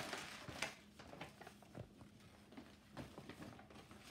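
Quiet rustling with scattered light clicks and knocks of gift packaging and items being handled, with a short rustle in the first second.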